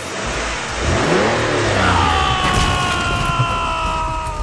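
Dubbed-in car sound effect: an engine revving up and down, then from about halfway a long high squeal that falls slightly in pitch.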